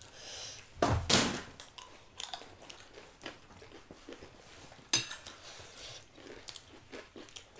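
Close-up crunchy chewing of chatpate, the spicy puffed-rice street snack: one loud crunching bite about a second in, another sharp crunch near five seconds, and scattered small crunches and clicks of eating between.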